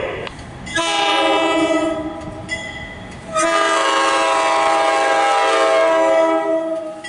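Horn of an approaching MARC commuter train, sounded from the leading cab car at a grade crossing. It gives two blasts of several tones at once: a shorter one about a second in, then a longer one held for about three and a half seconds.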